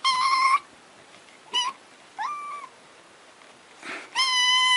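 Kitten meowing repeatedly in high, thin calls: a short meow at the start, a brief one, one that rises then holds, and a longer steady meow near the end.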